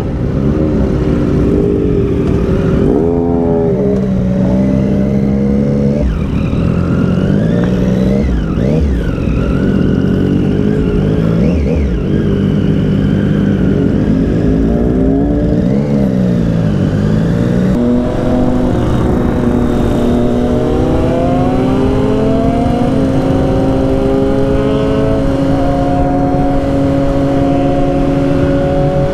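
Triumph Street Triple's three-cylinder engine accelerating hard through the gears, its revs climbing and dropping with each shift, then holding a steady note at cruising speed for the last several seconds, over a constant low wind rush.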